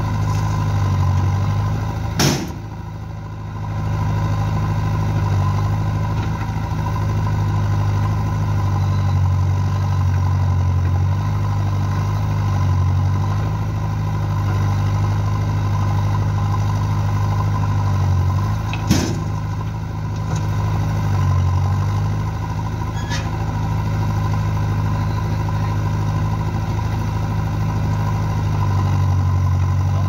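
Diesel engines of a JCB backhoe loader and tractors running steadily while the backhoe digs soil and loads a tractor trolley, with two sharp metallic clanks, about two seconds in and again near nineteen seconds.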